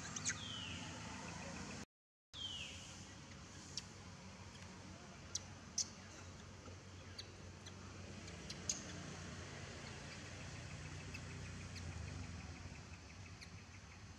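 Infant macaque giving two short, high squeals that fall in pitch, one right at the start and another about two seconds later. Scattered sharp clicks and a faint low hum run under them, and the sound cuts out briefly between the two calls.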